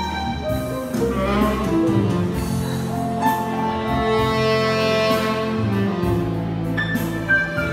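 Live instrumental ballad: a violin melody passes to a tenor saxophone partway through, over piano accompaniment.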